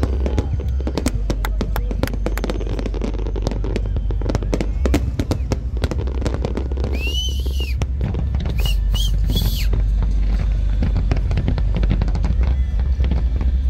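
Aerial fireworks going off in quick succession: many sharp crackles and pops over a steady low rumble, with a few louder bursts in the middle.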